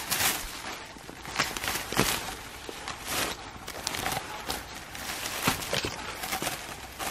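Olive rake combing through olive branches: leaves rustling, with irregular sharp clicks and clatter as twigs are struck and olives are knocked down onto the net.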